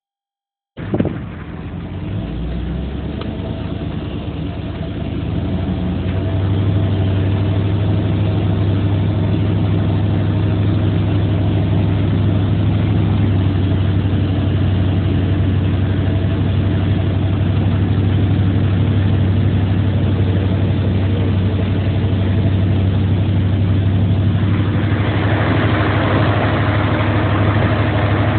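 A vehicle engine idling with a steady low hum, joined about 24 seconds in by a rising rushing noise.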